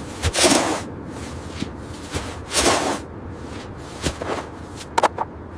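Two long noisy swishes, about a second in and again near the middle, followed by a few short knocks near the end.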